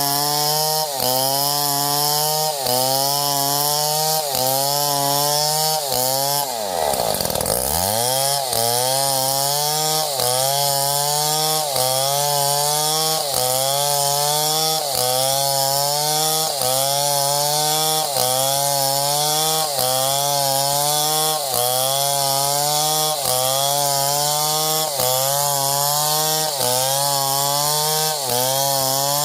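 Chainsaw running hard while cutting wood, its engine pitch dipping and recovering about once a second. About seven seconds in, the revs fall steeply almost to idle and climb straight back up.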